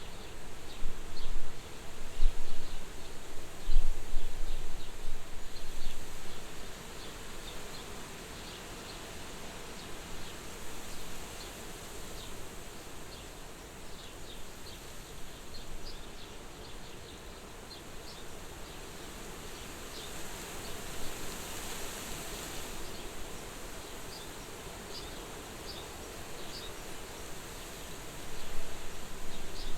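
Soft wind blowing at a farmhouse window, gusting louder with a low rumble in the first few seconds and again near the end, a steady gentle hiss in between. Many short, high chirps of small birds are scattered throughout.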